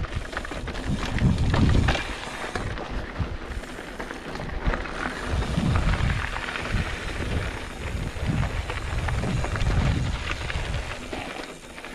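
Wind buffeting the microphone in heavy low gusts, each a second or two long, while riding a mountain bike, with scattered clicks and rattles over a steady noisy rush.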